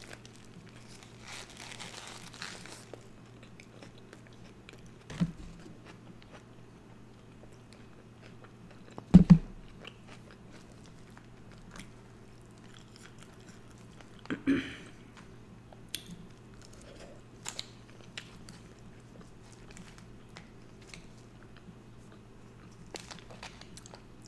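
Close-miked eating: biting into a cheeseburger and chewing it, with animal style fries forked up between bites. Scattered soft clicks and a few louder knocks, the loudest about nine seconds in, over a faint steady hum.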